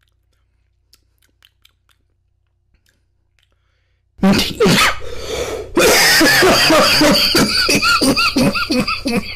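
Near silence for about four seconds after a vape exhale, then a man breaks into a hard coughing fit from the vape hit, very loud from about six seconds in.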